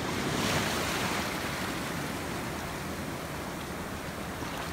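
Ocean surf washing and breaking in the shallows. It swells louder about half a second in, then settles into a steady rush.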